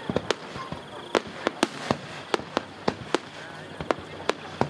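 Fireworks display: aerial shells bursting in an irregular barrage of sharp bangs, about three a second.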